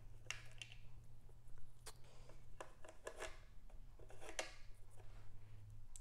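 Small river pebbles clicking and scraping against each other as they are placed one by one by hand into a fountain's rock tray: a handful of light, scattered clicks.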